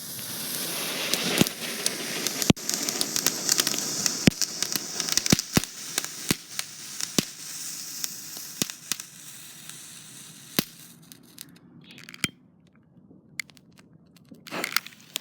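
A ground firework spraying with a steady hiss, with a dozen or so sharp cracks and pops scattered through it. It dies away after about ten seconds, leaving one more pop a little later.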